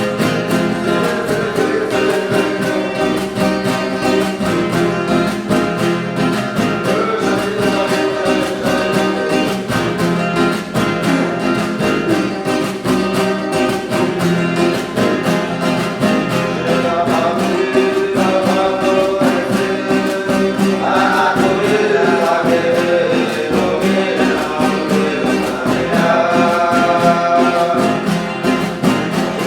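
Huni Kuin chant sung by voices over a steadily strummed plucked string instrument, a steady rhythmic accompaniment under the singing.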